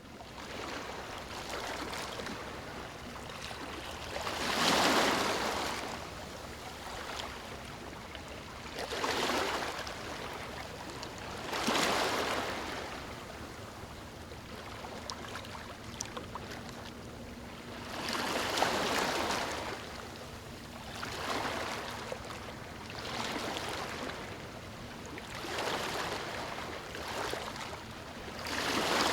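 Calm waves on a sandy beach, each small wave breaking and washing up the sand in a rush of water every few seconds, then easing back.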